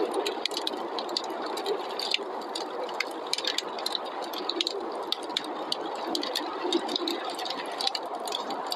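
A wood fire crackling, with frequent irregular sharp pops and snaps, over a steady rushing of snowstorm wind.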